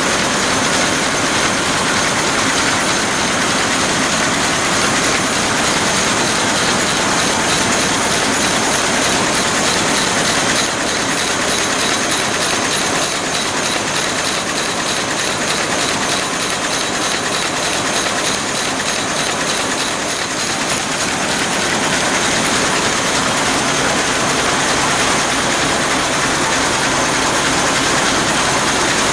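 Burmeister & Wain seven-cylinder two-stroke marine diesel engine running steadily, heard close to its exhaust valve gear: a loud, even din with a fast, regular clatter.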